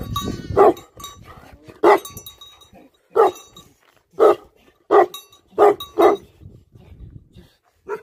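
Large mastiff-type livestock guardian dog barking: about seven loud single barks roughly a second apart, coming a little faster around the middle, with a pause near the end.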